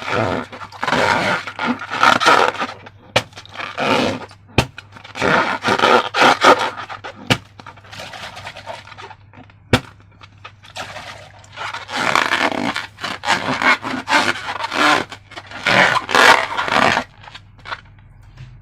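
Hands working a rubber balloon and slime: irregular scraping and rubbing noises in uneven bursts, with a few sharp single clicks along the way.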